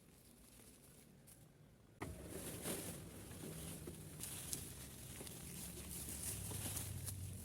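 A homemade feed chopper's motor hum with crackling and scattered clicks, starting abruptly about two seconds in after a quiet stretch.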